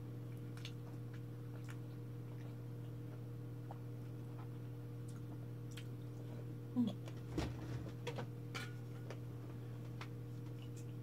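A person eating with their hands: soft chewing and small lip-smacking clicks, with a few louder wet smacks about two-thirds of the way through as fingers are sucked clean. A steady low hum runs underneath.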